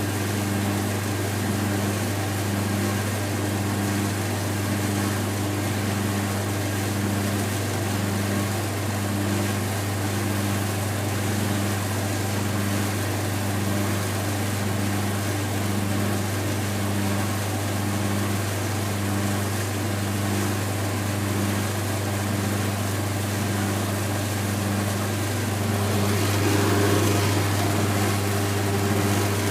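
A 1980s laundry machine running, its motor giving a steady low hum with a tone that pulses about once a second as the drum turns. About 26 s in the sound grows louder and a higher tone joins in.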